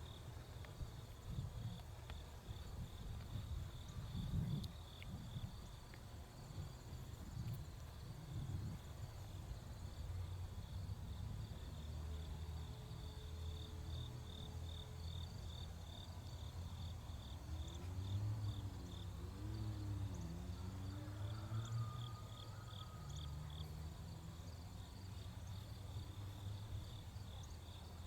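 Crickets chirping in a steady, rapid pulse, over a louder low rumble.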